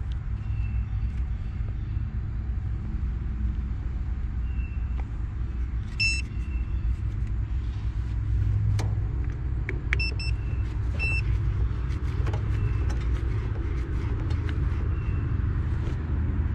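A steady low rumble throughout, with a few short, high electronic beeps from handheld test meters about six, ten and eleven seconds in.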